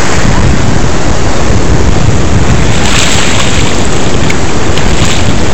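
Loud wind buffeting the microphone over the wash of surf, with the rush of a wave sliding up the sand swelling about three seconds in.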